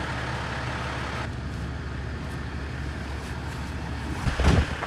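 Steady road and engine noise of a car driving, heard from inside the cabin, with a brief louder burst about four seconds in.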